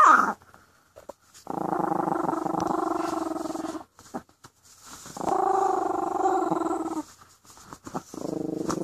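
A tiny chihuahua, about three pounds, growling in three long growls of about two seconds each with short pauses between, after one short, sharp call falling in pitch at the very start. They are warning growls at a hand prodding the blanket it is hiding under.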